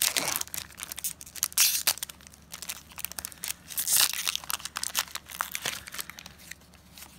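Foil wrapper of a Magic: The Gathering booster pack crinkling and tearing as it is ripped open by hand, an irregular crackle with louder bursts about one and a half and four seconds in. The crinkling thins out near the end as the cards come out.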